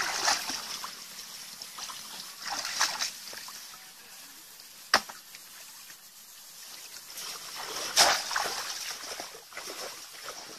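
Shallow muddy water splashing and sloshing in several short bursts as a bamboo plunge-basket fish trap is worked down into it and hands grope inside it. The loudest splash comes near the end, and there is one sharp click about halfway through.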